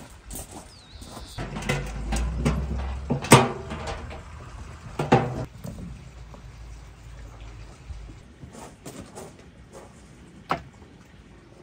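Clatter of a metal baking tray being handled over a fire pit, with a run of sharp metallic knocks, the loudest about three and five seconds in. Near the end comes a single knock as the tray is set down on a wooden table.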